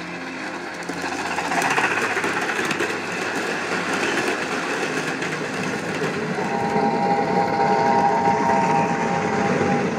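1:32-scale battery-electric C38 model train running on garden track: the wheels roll and clatter over the rail joints in a steady rumble. From about six and a half seconds a steady high tone sounds over it.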